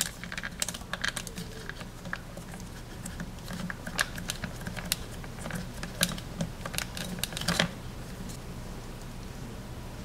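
Fingers and fingernails working Play-Doh into a hard plastic toy mold, making an irregular run of small clicks and taps like typing. The clicking stops about three-quarters of the way through, leaving only a faint low hum.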